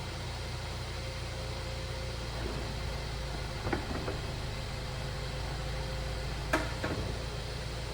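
Mercedes-Benz engine idling steadily, with a couple of light mechanical clicks about four seconds in and a sharper clunk, followed by a click, near the end.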